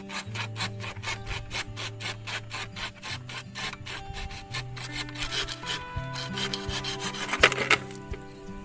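Rhythmic rasping strokes of a hand tool working wood, about four or five a second, with a sharper, louder burst near the end, over background music.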